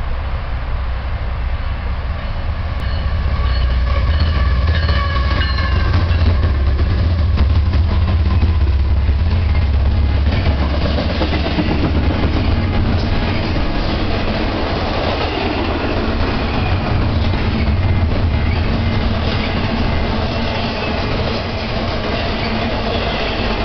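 BNSF intermodal freight train passing close by. The diesel locomotives go by first with a deep rumble and a high whine. Then double-stack container cars and trailer-carrying flatcars roll past with a steady clatter of wheels on rail.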